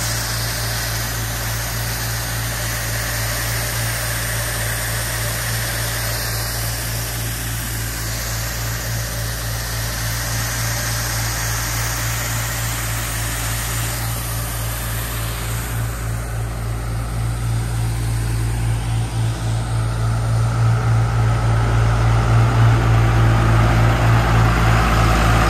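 Engine-driven high-pressure water blasting machine running steadily: a continuous engine hum under the hiss of water jets blasting the pavement from the blasting head. In the last third the engine grows louder and throbs.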